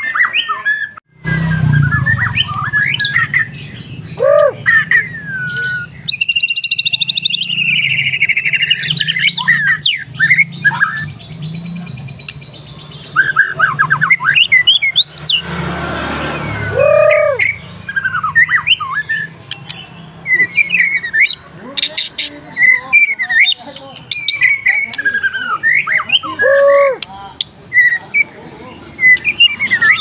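White-rumped shama (murai batu) singing continuously: a varied string of loud whistles, rising and falling sweeps and rapid trills, with a harsh rasping note about halfway through. A low steady hum runs underneath from about a second in until about two-thirds of the way through.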